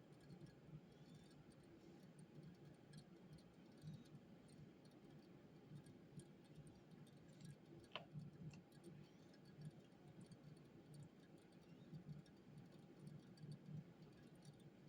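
Near silence: faint room tone with a low hum and scattered, irregular light ticks, and one sharper click about halfway through.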